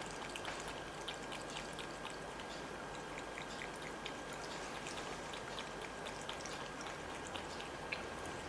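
A cat lapping water from a bowl: small, irregular wet clicks and light splashes over a steady hiss.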